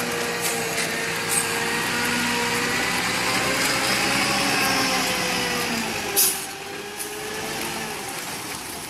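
Concrete mixer truck's diesel engine running as the truck moves slowly, its tone wavering a little. A short, loud hiss about six seconds in, after which the sound is a little quieter.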